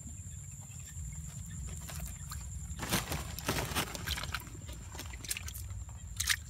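Hands splashing and groping in a shallow hole of muddy water while catching fish, with a few short splashes about three seconds in and again near the end, over a steady low rumble.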